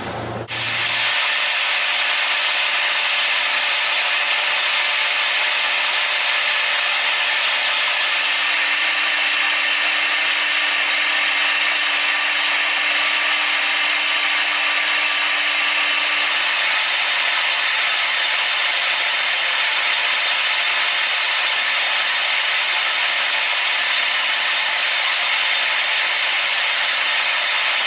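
A machine running steadily with an even, harsh mechanical noise and a thin high whine.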